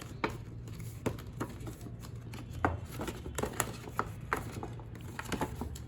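Stiff cardstock being folded and pressed by hand: scattered dry taps, creases and rustles of the card.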